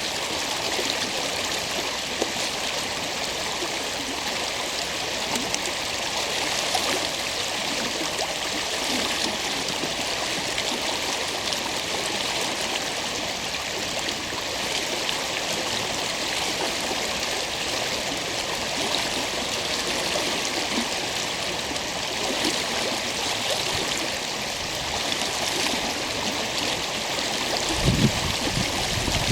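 Stream water flowing with a steady rushing and gurgling. Near the end a gust of wind buffets the microphone with a low rumble.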